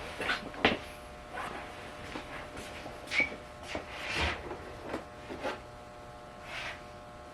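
Small hard parts and tools being handled: a string of light clicks, taps and rustles, the sharpest about a second in, over a steady electrical hum.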